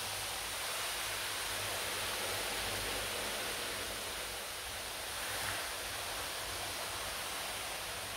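Hot water pouring in a steady stream from a kettle onto a frying pan and splashing into the metal tray beneath it.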